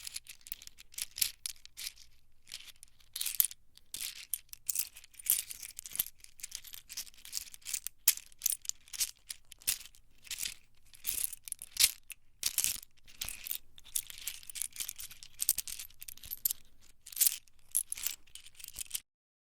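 Irregular high-pitched crackling and rustling in quick, uneven bursts.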